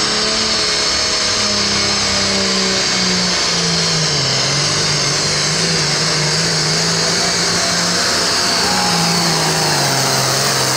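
New Holland Pro Farm pulling tractor's turbocharged diesel engine at full throttle, dragging the weight sled down the track. The engine note holds high and loud, sagging slightly a few seconds in and again near the end as the load builds.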